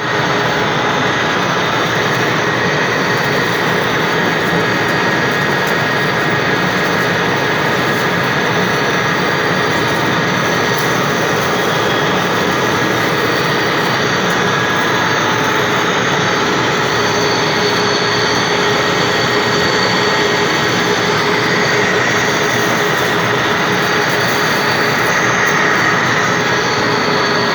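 A Morando machine tool running steadily while taking a 10 mm deep cut, just after repair: a continuous mechanical noise with a constant whine on top.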